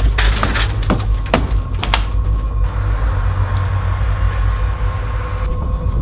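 Low, steady rumbling drone of a horror film soundtrack, with several sharp taps in the first two seconds and a faint steady hum from about three seconds in.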